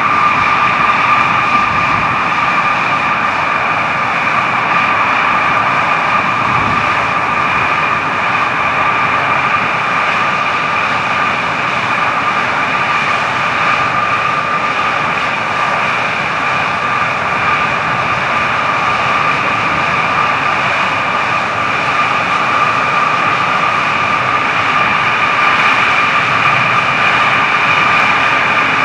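F-16 Fighting Falcon's jet engine running at ground idle, kept running for hot-pit refuelling: a steady high whine with a higher second tone over an even rushing noise, holding level without change.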